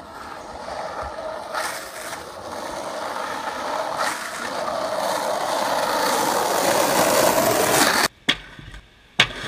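Skateboard wheels rolling on asphalt, growing steadily louder as the board comes closer, then cutting off abruptly about eight seconds in. A couple of sharp clacks follow near the end.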